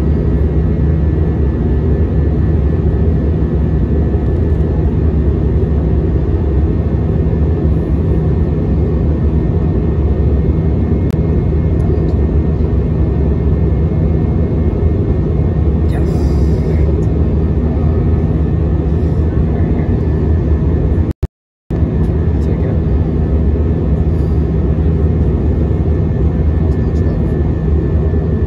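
Steady in-cabin noise of an Airbus A320-232 in flight: its IAE V2500 turbofans and the rushing air make a constant low hum with a faint steady whine. The sound drops out completely for a split second about three quarters of the way through.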